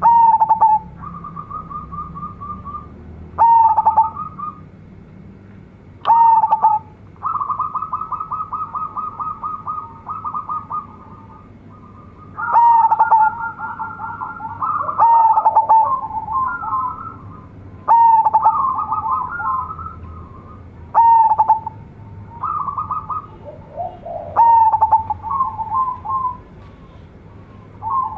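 Zebra dove (perkutut) cooing: a loud clipped note about every three seconds, with quick rolling trills of coos between them.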